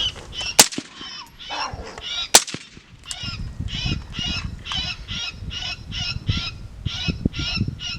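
Two sharp cracks in the first few seconds, then a fast run of short, honking calls, about three a second, from an electronic predator caller.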